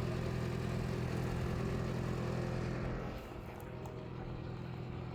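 Motor vehicle engine running with a steady low hum and rushing noise; the noise eases off about three seconds in.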